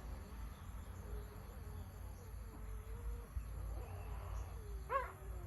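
Puppies whimpering in thin, wavering whines, with one louder, sharp yelp near the end.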